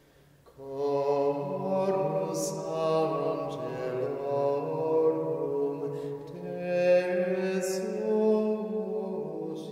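Slow sung chant as intro music: voices holding long notes that step from pitch to pitch, with the hiss of sung consonants now and then, starting about half a second in.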